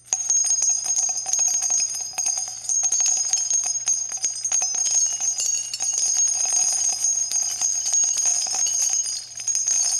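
Outro music of continuous jingle-bell shaking, a dense shimmer of small clicks with a steady high ring, starting abruptly after a brief silence.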